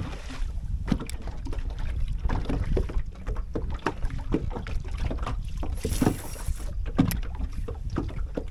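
Small waves lapping against a fishing boat's hull and wind on the microphone, a steady low rumble with many light knocks and clicks scattered through it.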